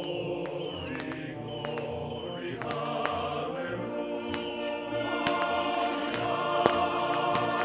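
Choral music with singing voices, with sharp cracks scattered through it. The loudest crack comes about two-thirds of the way in.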